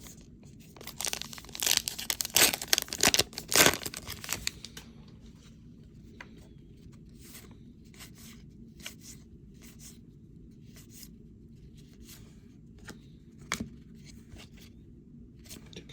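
Foil trading-card pack wrapper being torn open and crinkled for a few seconds, followed by a series of light clicks and flicks as the cards are handled and sorted.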